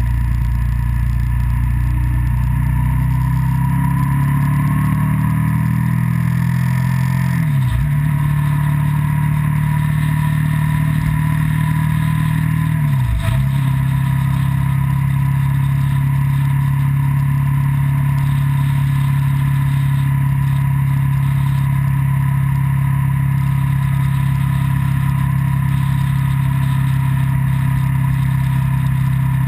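Engine of the camera vehicle running on an open road, its pitch climbing as it accelerates over the first several seconds. The note dips briefly twice, about eight and thirteen seconds in, then holds steady at cruising speed over a constant rush of road and wind noise.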